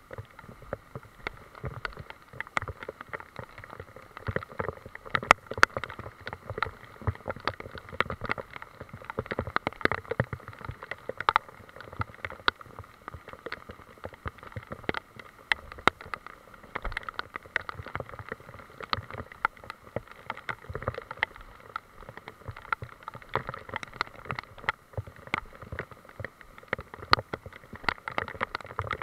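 Rain in woodland: a steady hiss with many irregular sharp drop taps close to the microphone.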